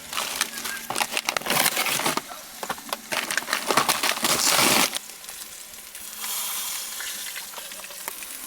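Loud crinkling and crunching of packaging being handled for about five seconds. Then the steady sizzle of a steak searing in a cast iron pan.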